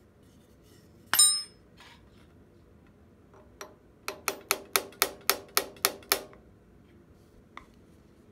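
Pin hammer tapping a planer knife back into a Wadkin planer's steel cutter block to set it: one loud ringing metal clang about a second in, then a quick run of about nine light taps, roughly four a second.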